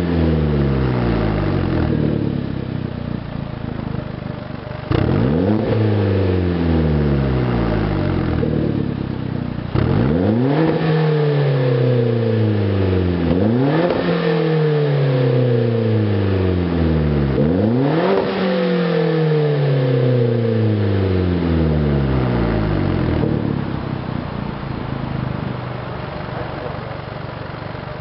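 Hyundai Genesis Coupe 2.0T's turbocharged four-cylinder engine, heard through an ARK DT-S cat-back exhaust with quad tips, free-revved while parked. It gives a sharp blip about every four seconds, each rev falling back toward idle, and settles to a steady idle near the end.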